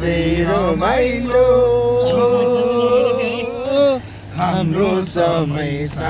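A man singing a Nepali folk song, with one long held note through the middle.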